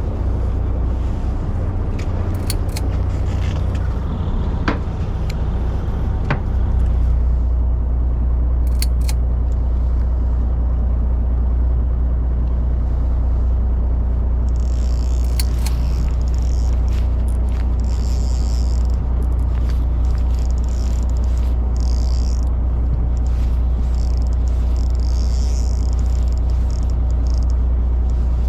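Fishing boat's engine running with a steady low rumble that grows a little louder about six seconds in. A few sharp ticks early on, and patches of high hiss come and go through the second half.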